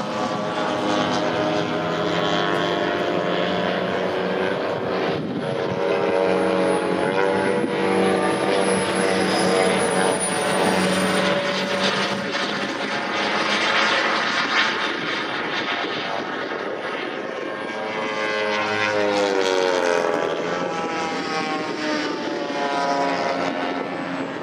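Engines of radio-controlled model aircraft droning in flight. Several steady engine tones overlap, and one drops in pitch about three-quarters of the way through as a plane passes. Above them a faint thin high whine sinks slowly in pitch.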